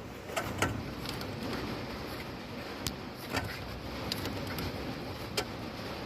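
CV drive shaft rubbing against the lower control arm mounting: irregular sharp clicks and knocks, about six of them, over a steady running noise.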